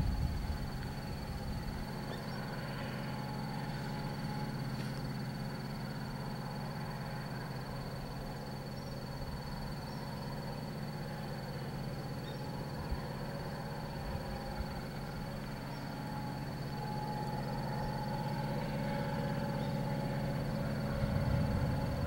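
Rural outdoor ambience: a steady low drone, rising a little near the end, with faint scattered bird chirps and a constant thin high-pitched whine.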